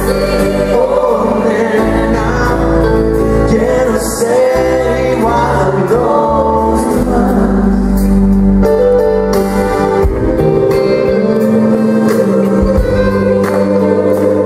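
Live pop ballad with a gospel choir, a piano and electric guitars. A female lead voice sings sustained, bending vocal lines over steady bass and chords.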